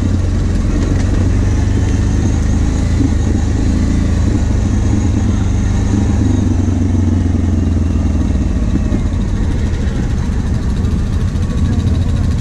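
ATV engine running steadily as the quad rolls along a dirt trail.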